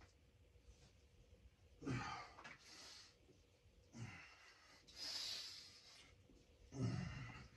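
A man breathing hard from the cold just after leaving an ice bath: four sharp, breathy exhales a second or two apart, the last the loudest.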